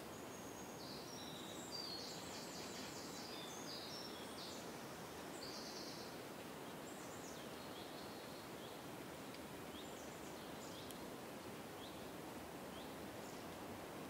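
Forest ambience: a steady soft rush of wind in the trees, with small birds chirping high above it. The chirping comes in a busy run in the first few seconds, then thins to scattered short calls.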